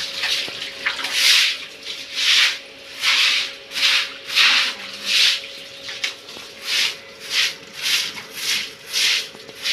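Stiff bundled-bristle broom scrubbing a wet concrete floor in regular strokes, about one and a half a second.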